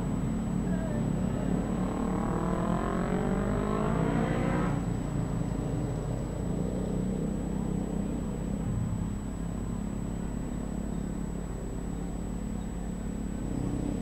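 A motor vehicle engine accelerating over a steady low rumble, its pitch rising for about three seconds before cutting off suddenly about five seconds in.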